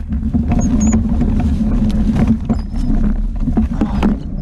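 ATV engine running steadily at low speed, with scattered short clicks over it.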